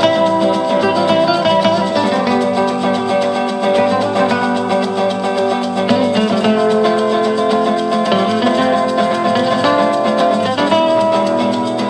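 Instrumental Latin music led by plucked guitars, with a quick even strumming rhythm and a light shaker.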